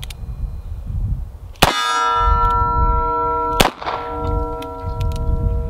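Two shots from a Ruger LCR X revolver, about two seconds apart. Each shot is followed by the long, many-toned ringing of a steel target being hit.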